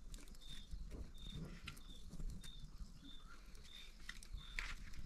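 Small wood fire crackling with scattered sharp pops as a snake's skin is singed over the embers. A short high chirp repeats about every 0.7 seconds behind it.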